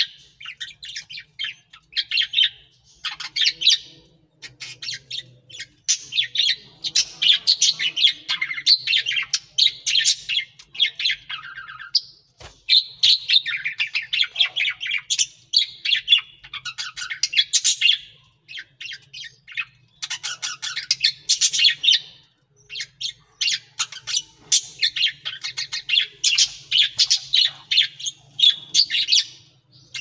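Budgerigars chattering and warbling: quick runs of chirps and squawks in bursts of a few seconds, broken by short pauses.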